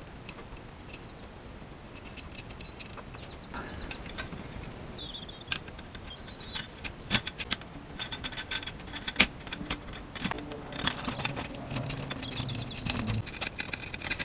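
Sharp clicks and taps of small plastic and metal parts and a screwdriver as step screws and nuts fasten a radio-control car's front suspension to its chassis, coming thick from about five seconds in. Birds chirp faintly in the background early on.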